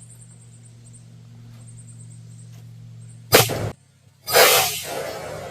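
Glock 19 Gen 5 9mm pistol fired: a sharp, very loud shot about three seconds in, then after a brief dropout a longer loud burst of noise that tails off. A low steady hum runs beneath before the shot.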